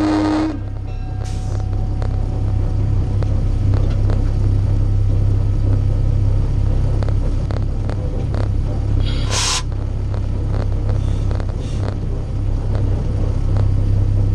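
Diesel locomotive engine running steadily under way, a loud low hum, heard from its hood roof beside the exhaust stack. A horn blast cuts off about half a second in, and a short hiss bursts out at about nine seconds.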